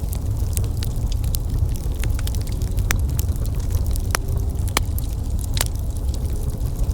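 Wood fire burning: a steady low rumble of flames with frequent sharp crackles and pops, a few louder snaps in the middle.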